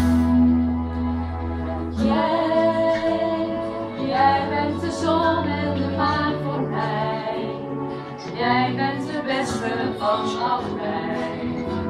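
Live singing: a woman's voice leads a Dutch love song, with musical backing.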